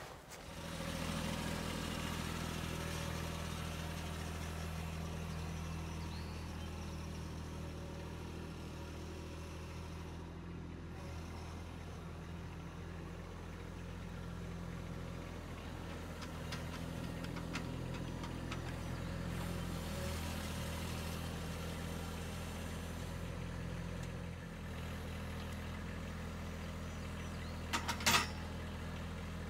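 Kubota B2601 compact tractor's diesel engine running steadily while it pulls the Kranman hydraulic timber trailer, with a short clank near the end.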